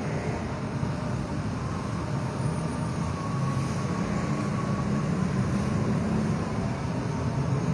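Steady background noise with no speech, strongest in the low range, swelling slightly around the middle.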